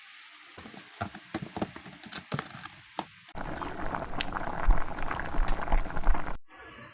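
Cooking in a pot: a few knocks and clinks of a utensil, then about three seconds of loud rushing liquid, like pouring or boiling, that cuts off abruptly.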